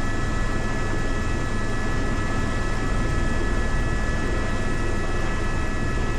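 A steady mechanical drone with a constant high whine over it, level throughout.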